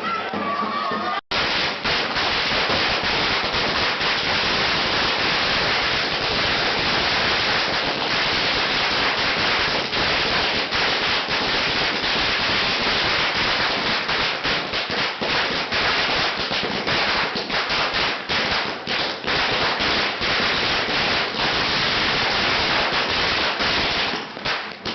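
A long string of firecrackers going off in a dense, continuous rapid crackle, starting after a brief gap about a second in. The bangs grow more separate in the second half and die away near the end.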